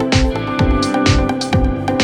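Electronic background music with a steady beat, about two drum hits a second.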